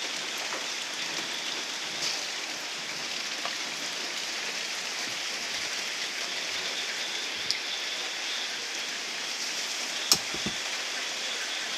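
Steady, even hiss of outdoor night ambience with a faint high tone running through it, and one sharp click about ten seconds in.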